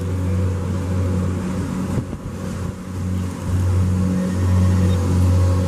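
Lawnmower engine running, a steady low drone that grows louder and fainter in turn.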